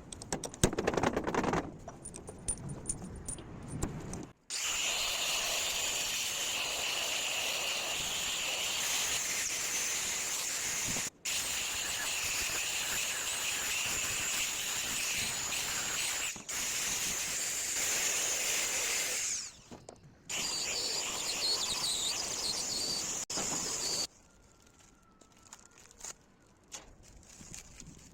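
A power tool working on cast metal, running in long stretches with a steady hiss and a high whine. It stops briefly three times and cuts off about 24 seconds in, after a few seconds of scraping and knocks at the start.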